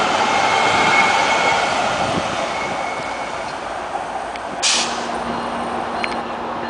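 LA Metro light-rail train running past, its wheels and motors giving a steady whine that fades after the first couple of seconds. A short hiss sounds about four and a half seconds in.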